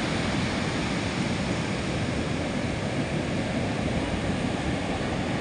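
Ocean surf breaking and rushing steadily, with wind buffeting the microphone.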